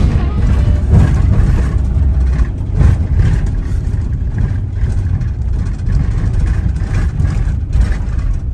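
A motor vehicle on the move: a steady low engine and road rumble, with occasional knocks.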